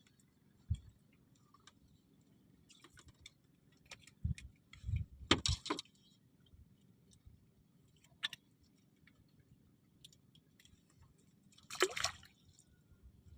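Water sloshing and splashing with scattered small knocks and rattles of handled gear, as on a fishing raft; the louder splashes come about five seconds in and near the end.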